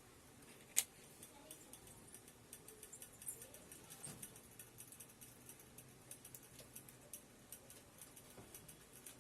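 Cooking oil heating in an electric kettle, faint irregular crackling and popping as it starts to spit, with one sharper click about a second in.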